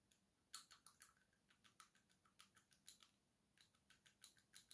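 Faint, irregular small clicks and taps of small craft items being handled and set down on a table, a few per second, starting about half a second in.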